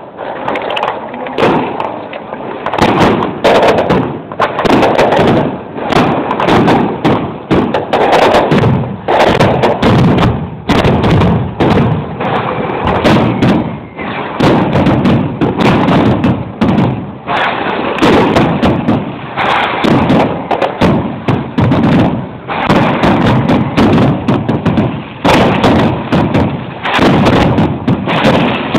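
A loud, unbroken barrage of aerial firework bangs and crackles, many per second with no pause.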